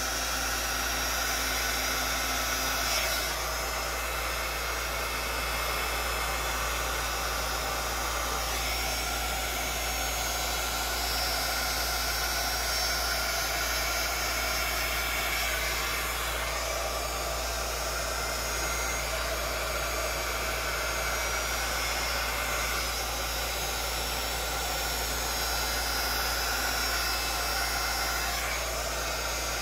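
Handheld electric heat gun running steadily, its fan blowing hot air over wet epoxy resin.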